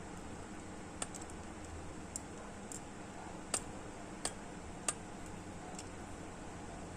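About eight sharp, light clicks, irregularly spaced, over a steady low hiss.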